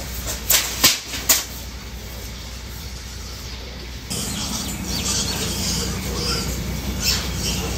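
A few sharp knocks in the first second and a half, then from about four seconds in a pen of piglets squealing and grunting.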